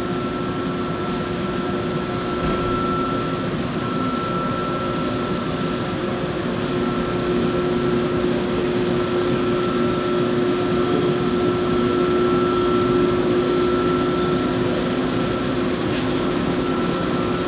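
Steady mechanical hum of running machinery, with a constant whine above it and a faint click near the end.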